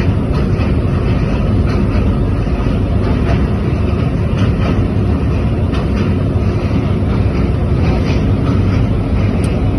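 Train in motion heard from on board: a steady, loud running rumble with wind buffeting the microphone.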